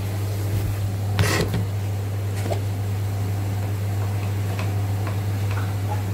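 A steady low hum, with a single clatter about a second in and a few light ticks after.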